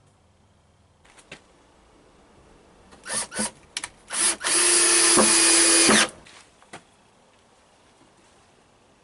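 A handheld power tool started in several short bursts, then run steadily for about a second and a half before stopping.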